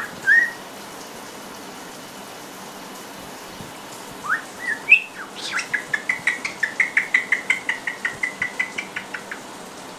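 White-bellied caique whistling: a short rising note right at the start, then a few rising whistled notes about four seconds in, followed by a quick even run of short whistled notes, about five a second, lasting about four seconds.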